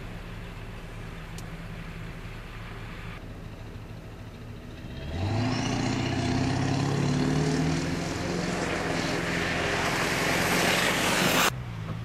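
Vehicle engines idling with a steady low hum. About five seconds in, a car engine picks up and rises in pitch as it drives through deep slush, with a hiss from the tyres that grows louder. The sound cuts off abruptly near the end.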